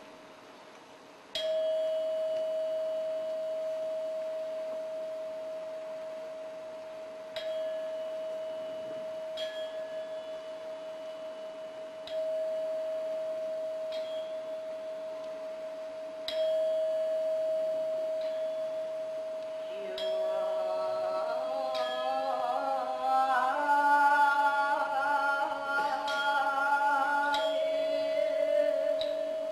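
Performance music: a bell-like struck metal tone at one steady pitch, re-struck every few seconds and ringing on between strikes. About two-thirds of the way in, a voice joins, singing a wavering, chant-like line over the ringing.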